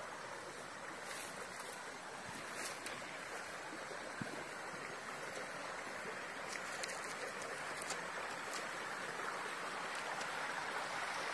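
Shallow stream rippling and splashing over rocks, a steady rush of water that grows slowly louder.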